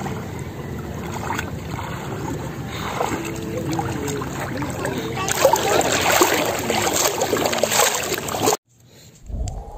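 Shallow seawater sloshing and splashing around legs as a man and two small children wade, with wind rumbling on the microphone. The water grows louder about halfway through, then the sound cuts off abruptly near the end.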